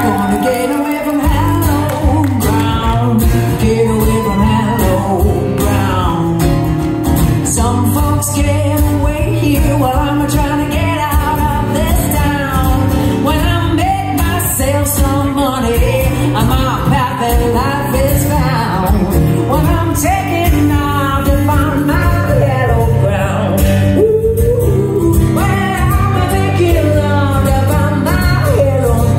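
A woman singing live, accompanying herself on a strummed acoustic guitar.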